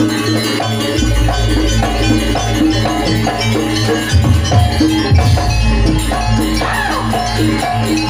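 Live janger gamelan music: a quick, repeating pattern of struck metal notes over a steady low drone, accompanying the garuda bird dance.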